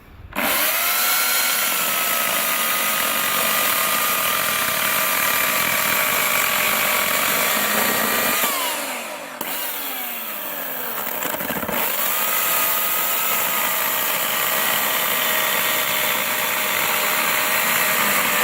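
Titan 2000 W electric chainsaw's motor whining at full speed as it cuts through a log. About eight seconds in the whine falls away as the saw slows, and a few seconds later it comes back up to speed and carries on cutting. It winds down again at the very end.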